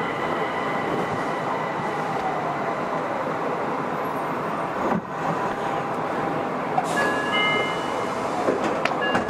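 Nagoya Municipal Subway 2000 series train with IGBT-converted traction electronics running in the tunnel: steady wheel and tunnel rumble under the traction motors' electronic whine. The whine slides down in pitch over the first few seconds, and from about seven seconds in a group of steady high tones at several pitches sounds.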